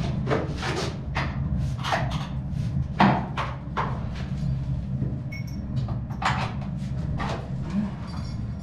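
Irregular knocks and scrapes, two or three a second, from hand work at a concrete wall, over a steady low hum.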